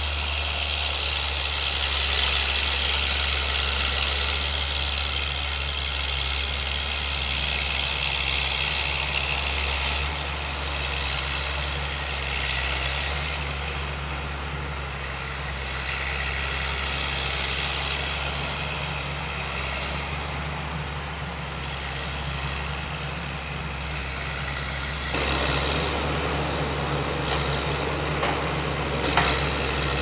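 Diesel engine of a timber forwarder running steadily as its hydraulic crane loads logs, with a single sharp knock near the end.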